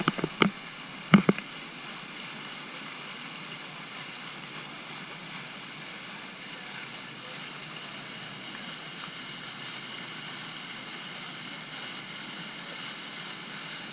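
Steady rush of a boat under way: water and wind noise with a faint motor hum, with two short louder sounds in the first second and a half.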